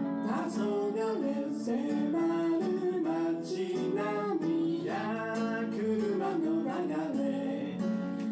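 A man singing a song while accompanying himself on acoustic guitar.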